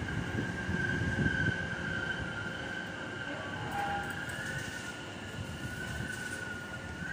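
Greater Anglia Class 720 Aventra electric multiple unit running past along the platform. A low rumble of wheels on rails eases after about a second and a half, under a steady high whine.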